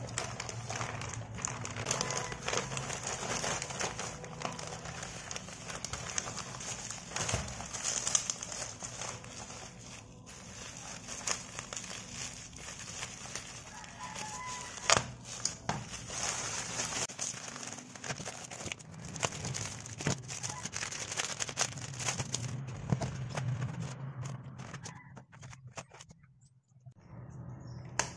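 A plastic courier mailer and bubble wrap crinkling and rustling as a parcel is unpacked by hand, full of small clicks and taps. The sound drops away briefly shortly before the end.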